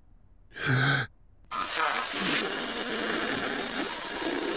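A short vocal sound, then from about a second and a half in a cartoon horn blown badly: a rough, buzzing blare with no clear note that doesn't sound right, the horn being too hard to play.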